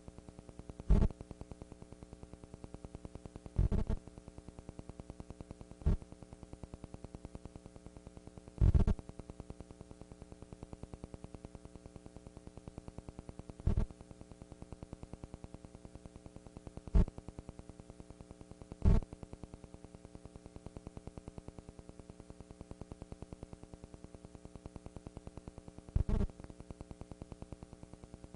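Steady electrical hum or buzz on the recording, broken by about eight short, loud low thumps at uneven gaps.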